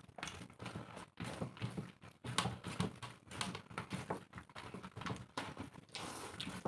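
Two people eating rice and chicken curry fast by hand: wet chewing and lip-smacking in a quick, irregular run of clicks, with fingers squelching through rice on steel plates.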